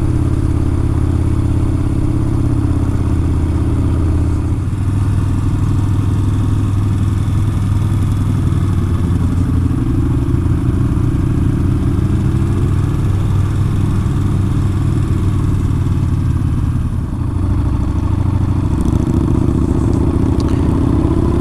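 Yamaha Bolt XV950R's air-cooled V-twin engine running steadily while riding, its pitch rising and falling gently with the throttle.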